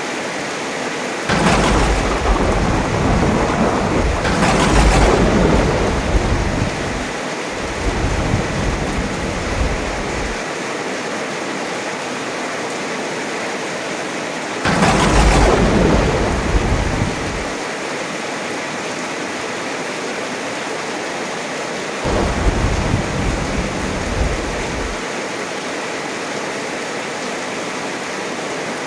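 Heavy rain falling steadily, with thunder rolling in four times: a sharp crack about a second in that rumbles on for several seconds, another crack and low rumble about halfway through, and a softer rumble near the end.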